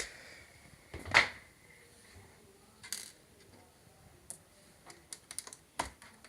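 Small metal laptop screws clicking and tapping on a hard surface as they are dropped out and gathered, with a louder click that rings briefly about a second in and a cluster of light clicks near the end.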